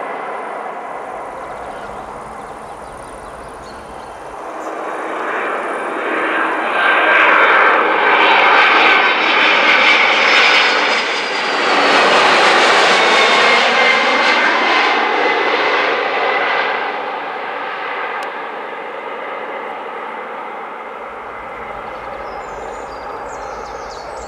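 Jet airliner's twin turbofan engines on landing approach, passing low overhead. The engine roar swells over a few seconds, stays loud for about ten seconds with a whine that falls in pitch as it passes, then fades to a steadier distant rumble.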